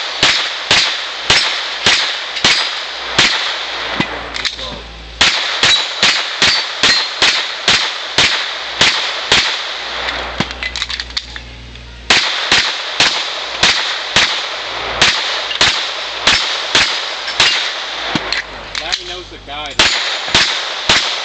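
Rapid pistol fire at steel plates and poppers, each shot followed by the ring of the steel being hit, about two shots a second. The string pauses briefly twice, about four seconds in and again around ten to twelve seconds in.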